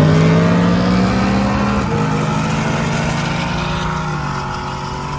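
Vehicle engine accelerating hard, its pitch climbing, then dropping once about two seconds in as it shifts up. It keeps pulling while gradually getting quieter.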